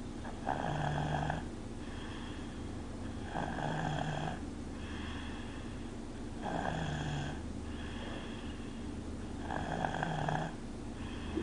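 Two-and-a-half-year-old child snoring in sleep: four louder snores about three seconds apart, with quieter breaths between.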